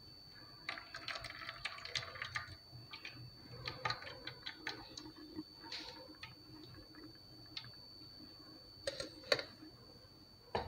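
Light, irregular clicks and taps of a stainless steel mesh strainer knocking against a glass bowl while it is shaken to strain a blended yogurt drink, with two sharper taps near the end.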